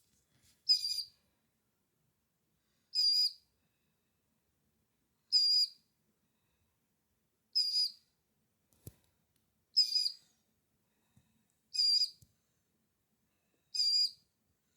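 Baby killdeer chick calling: a short, high, wavering peep repeated evenly about every two seconds, seven times.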